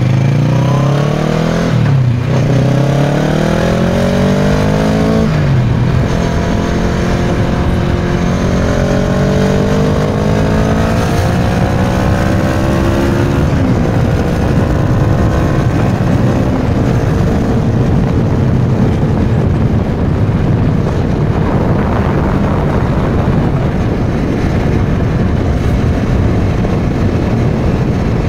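Kawasaki Versys 650 parallel-twin with a Giannelli aftermarket exhaust, accelerating hard through the gears: the pitch climbs, drops at two upshifts within the first five seconds, then rises long in the next gear. Over the second half it cruises at a steady note under rushing wind noise.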